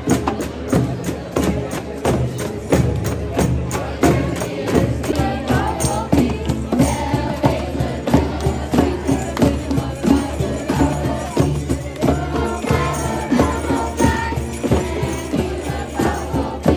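Music with a steady, fast beat of sharp percussion strikes over a steady bass, with a melody moving above it.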